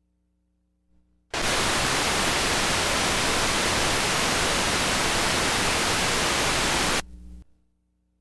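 Loud, even static hiss that cuts in suddenly about a second in and cuts off near the end, with a brief weaker tail. Faint electrical hum is heard before and after it.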